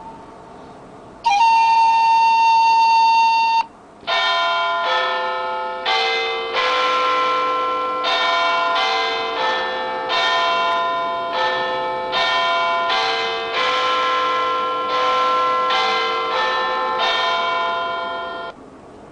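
Ringtones playing: a steady held electronic tone for about two seconds, then, after a short pause, a slow melody of struck bell-like chimes, roughly one note a second, each ringing on as it fades.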